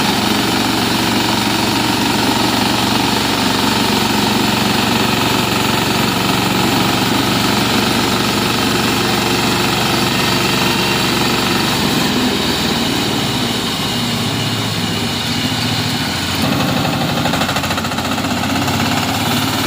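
Engine of a homemade sawmill running steadily, its note shifting about twelve seconds in and again a few seconds later.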